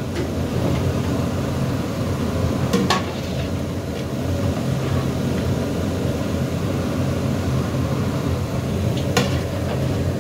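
Meat pieces being scooped and tipped with a plastic plate in a large aluminium pot, the plate knocking sharply against the pot twice, over a steady low rumble.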